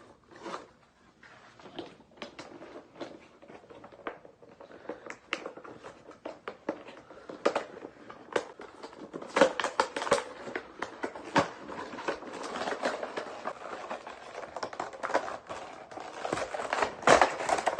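Action figure packaging being opened by hand: the plastic blister tray and cardboard box crinkle and click irregularly. The handling gets busier and louder about halfway through.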